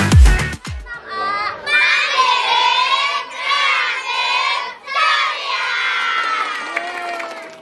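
A crowd of schoolchildren shouting and cheering together in several long yells. Electronic music with a heavy beat cuts off about a second before the shouting starts.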